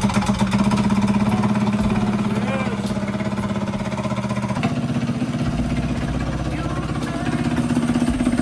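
Mini bike's small engine running steadily just after starting, its speed stepping up slightly about four and a half seconds in.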